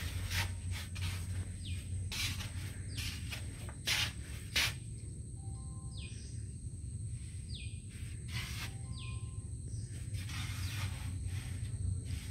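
Forest ambience: a steady high-pitched insect drone with a few short bird calls in the middle, over a low rumble and repeated brief rustling bumps.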